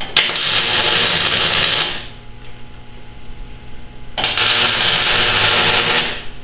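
Electric arc welding on steel tubing: two welds of about two seconds each, starting with a sharp strike and running as a steady dense noise, with a pause of about two seconds between them.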